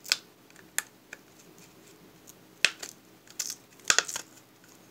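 Plastic clicks and snaps of an Xbox 360 hard drive's shell as its clips are pried loose by fingernail: a few sharp single clicks, then a quick cluster of them near the end.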